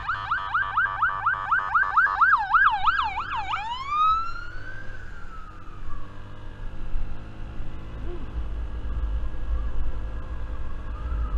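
Police car siren in a fast yelp, about four cycles a second, that slows into a wail about three seconds in, rises and falls once more and fades away. A low rumble takes over in the last few seconds.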